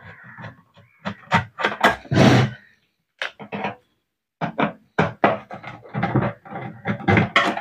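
Screwdriver working the screws out of an electric rice cooker's plastic bottom cover: quick, irregular clicks and knocks of the tool and screws against the plastic, with two short pauses near the middle.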